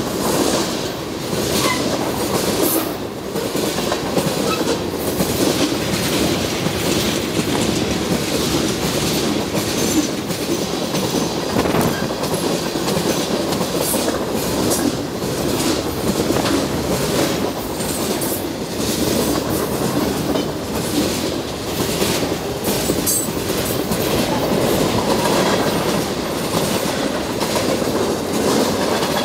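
Freight train cars rolling past close by: a steady rumble of steel wheels on the rails with a rapid, irregular clicking and clacking as the wheels cross the rail joints.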